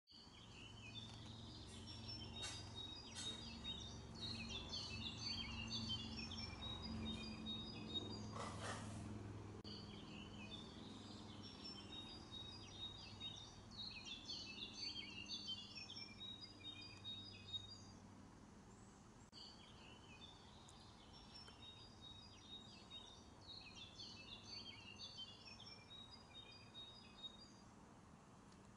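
A songbird singing in long runs of quick, high chirping notes, in three spells with pauses between, over a faint low hum; a brief rushing noise about eight seconds in.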